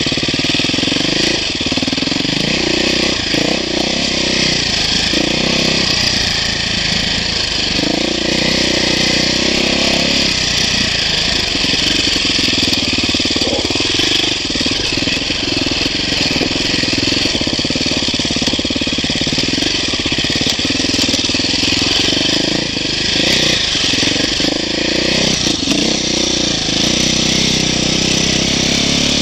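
2008 KTM 450 XC-F dirt bike's single-cylinder four-stroke engine running under load on a trail ride, its note rising and falling as the throttle opens and closes.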